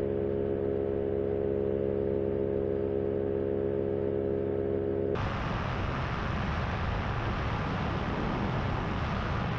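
Paramotor engine and propeller droning steadily in flight. About five seconds in, the sound switches abruptly from a clean, even engine hum to a rough rushing noise of engine and wind, as the recorded audio path changes.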